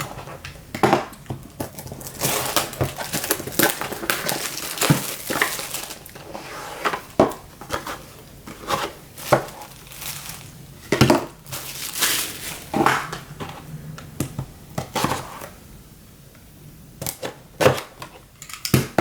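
Crinkling and tearing of plastic wrap and handling of cardboard packaging as a sealed box of trading cards is opened, with many short clicks and rustles.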